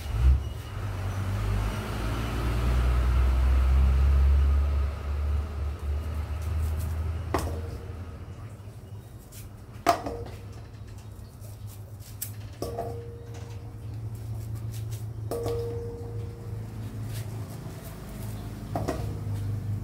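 Pot of tom kha gai soup at the boil under a glass lid, with a steady low rumble that is loudest in the first few seconds. The glass lid clinks against the aluminium pot about five times, each clink ringing briefly, after a thump at the very start.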